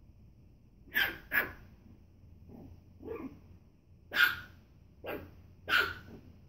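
Young puppies barking: a string of short, separate barks at irregular spacing, the loudest about a second in, around four seconds in and near the end.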